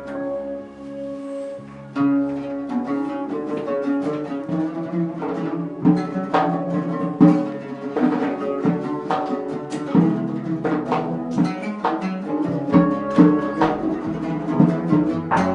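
Instrumental background music on string instruments: a run of quick plucked notes over held tones.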